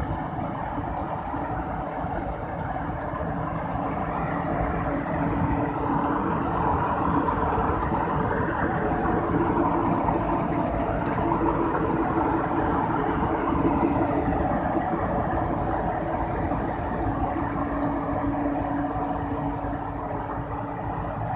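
Rice harvesting machine running steadily, its engine and machinery making a continuous hum; it grows a little louder in the middle, then eases off.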